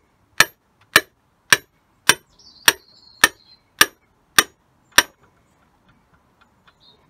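Hammer striking a socket extension bar held on a piston crown, tapping the piston down through a ring compressor into a cylinder bore of a BMW M57 straight-six diesel block. Nine sharp metallic taps at an even pace, nearly two a second, stop about five seconds in.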